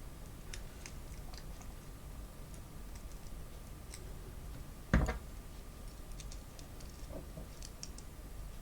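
Faint, scattered clicks of small plastic and metal parts being handled while a wheelset is worked into an N gauge locomotive tender chassis, with one sharp knock about five seconds in.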